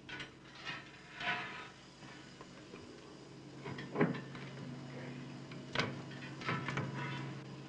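Scattered sharp metal knocks and clanks from work in a repair yard, with faint voices about a second in and a steady low machine hum that sets in around the middle.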